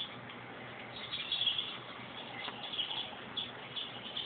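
Birds chirping on the soundtrack of a DVD made for cats, played over the TV's speakers: short high chirps, a few a second.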